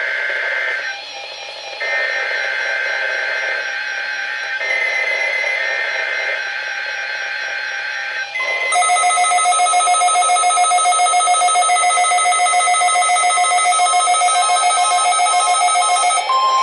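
NOAA Weather Radio SAME header data bursts: a harsh, buzzing warble of two switching tones, sent in blocks with short breaks. About eight seconds in, a louder electronic alert tone takes over, pulsing about four times a second. Just at the end a steady single tone sets in, the start of the warning alarm tone.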